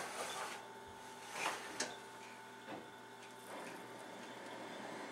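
Oven rack being slid out on its runners, with a couple of light metal clicks about a second and a half in.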